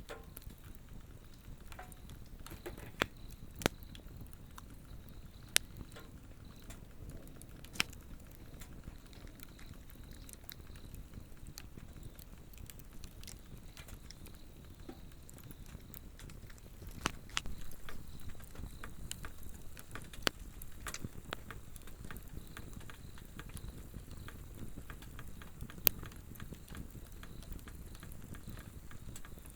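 Swedish torch burning with a low steady rush and sharp crackles and pops at irregular intervals, a dense run of them about two thirds of the way through. A faint, steady high insect trill runs beneath the fire.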